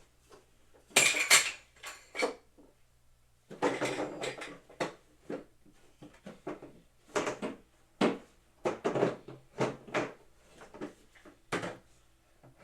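Hard parts of boxing equipment clinking, knocking and clattering irregularly as they are handled and fitted together during assembly.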